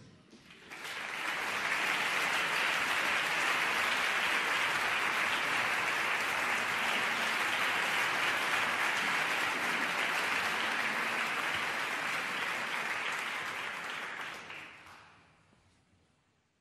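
Audience applauding, swelling over the first second or two, holding steady, then dying away about fifteen seconds in.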